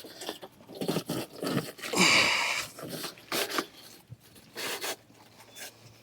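A Trane condenser coil being shoved and worked into place on its metal base: a string of knocks and scrapes, with a longer, louder scrape about two seconds in.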